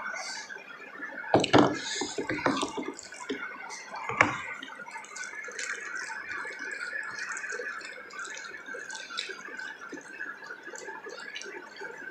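Close-up eating sounds: wet chewing and food being handled, with many small clicks and a couple of sharper knocks about a second and a half and four seconds in.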